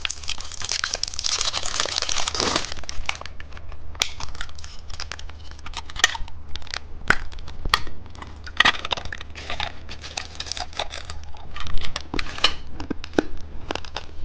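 Plastic candy packaging crinkling and being torn open, a dense rustle for the first couple of seconds, then scattered crackles and clicks as it is handled.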